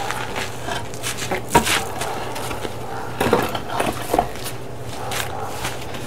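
Flat stone slabs knocking and scraping against each other and the sandy ground as they are lifted and set down, with a sharp knock about a second and a half in and a few more knocks a little after three seconds.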